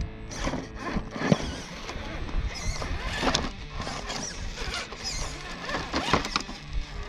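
Axial SCX10 III Bronco RC rock crawler's electric motor whining up and down as it climbs over rock, with irregular knocks and scrapes of tyres and chassis on stone.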